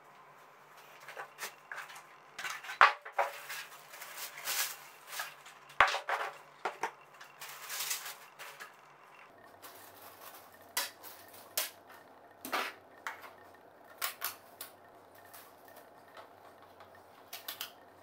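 Hard plastic parts of a cordless stick vacuum cleaner being handled and fitted together, along with its packaging. Irregular clicks, knocks and sharp snaps, with short rustling bursts now and then.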